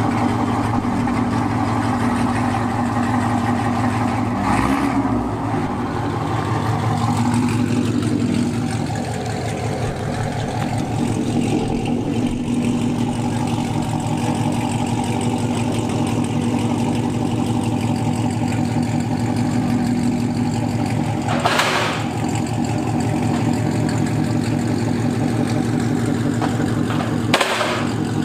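Chevrolet Camaro 1LE engine running through its MPP active exhaust, idling and creeping at low speed with a steady burble. The note swells briefly a couple of times early on, and a few short knocks sound over it.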